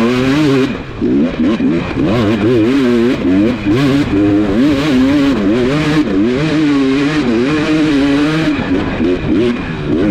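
Dirt bike engine being ridden, its pitch rising and falling constantly in quick, uneven throttle bursts.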